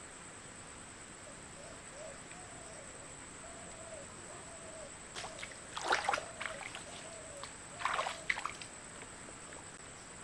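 Two short bursts of splashing, the first about five to six and a half seconds in and the second about eight seconds in, over a steady high-pitched drone and a run of soft repeated chirps.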